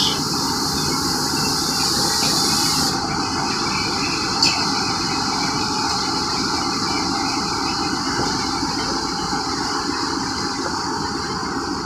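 Steady mechanical rumble from running machinery, with a high hiss that cuts off about three seconds in and a single knock a little later.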